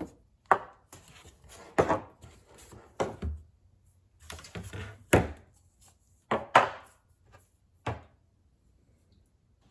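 A series of sharp knocks and clatters, about seven spread over eight seconds, as PVC pipe pieces and fittings are handled and set down on a workbench, with quieter rustling between them.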